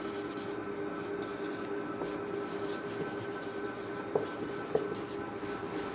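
Marker pen writing on a whiteboard: a run of faint strokes and scratches, with a couple of small ticks near the end, over a steady background hum.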